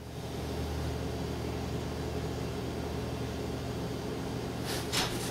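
Steady low electrical hum of the room's freezers running, with a couple of light clicks near the end.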